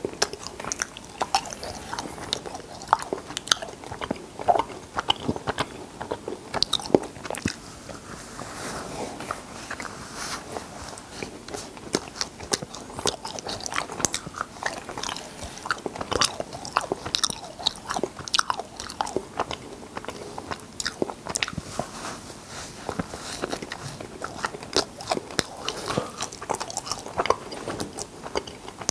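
Close-miked mouth sounds of a person eating cotton candy: a dense, irregular run of short clicks and smacks from lips and tongue as he chews tufts of spun sugar.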